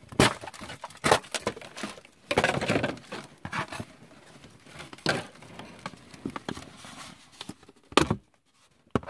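Toy packaging being handled: irregular crinkling and rustling with scattered clicks and knocks, a sharper knock about eight seconds in.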